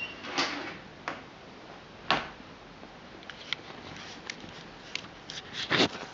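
Scattered soft rustles and clicks, a dozen or so irregular ones, the loudest cluster near the end: fabric and handling noise as the camera moves over the blanket-covered sofa where a cat is lying.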